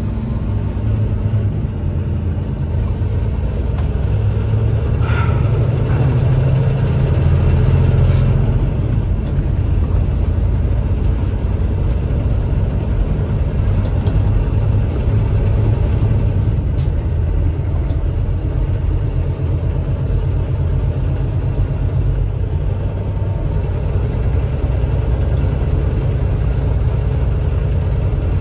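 Semi-truck diesel engine running under way, heard from inside the cab as a heavy low rumble mixed with road noise. It grows louder about four seconds in, then holds steady.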